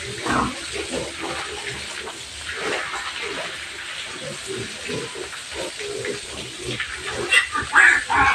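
Water spraying from a garden hose onto pigs in their pen, with the pigs grunting throughout. A few loud, high squeals come near the end.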